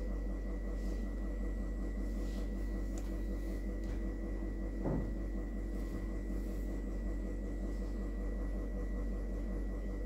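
Steady low hum with a thin, steady high whine over it. Faint scratches of a fine-tip ink pen on sketchbook paper, and a soft thump about five seconds in.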